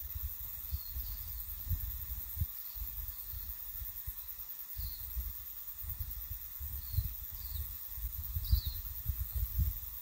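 Wind rumbling on the microphone, with faint short bird chirps about every second or so and a steady high hiss.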